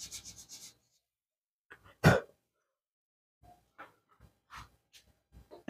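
A single short cough from a man about two seconds in, followed by faint scattered ticks of chalk on a blackboard.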